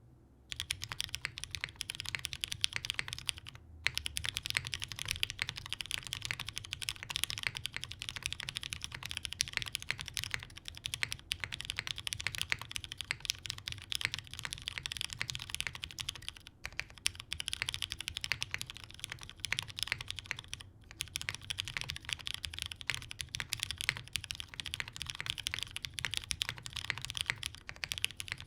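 Typing on a TGR 910 custom mechanical keyboard with lubed Cherry MX Brown tactile switches, a polycarbonate plate and GMK keycaps. It is a fast, continuous run of key clacks that starts about half a second in, with three brief pauses.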